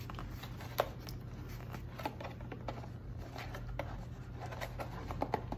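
Small items being handled in the hands: light rubbing and soft clicks, with a sharper click just under a second in and another about two seconds in.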